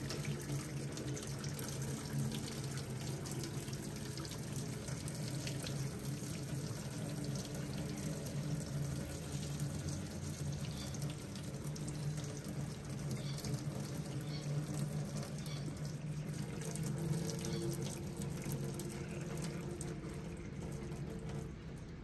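Hot cooking water poured from a pot into a stainless steel sink, splashing steadily onto the metal and running to the drain; the stream thins and the sound eases near the end.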